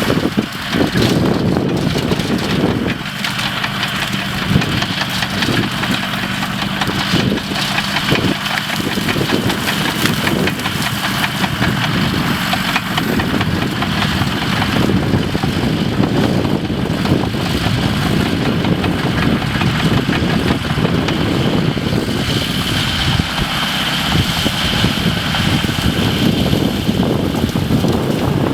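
Engine of tree-clearing machinery running steadily, with a few knocks in the first several seconds.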